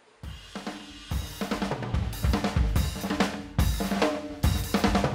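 Music with a full drum kit starts about a quarter second in, with snare, cymbals and bass drum over a bass line, and gets louder about a second later.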